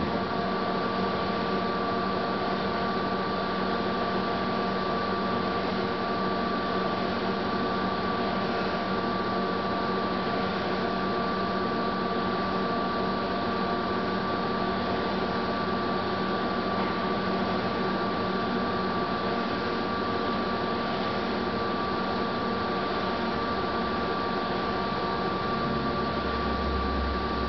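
34" x 192" Lodge & Shipley Magnaturn engine lathe running under power, a steady mechanical drone with a constant high gear whine. Near the end a low rumble joins in.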